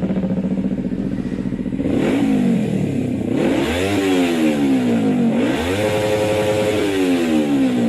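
Motorcycle engine idling steadily, then revved three times, its pitch climbing and falling each time, the last rev held high for about a second before dropping back.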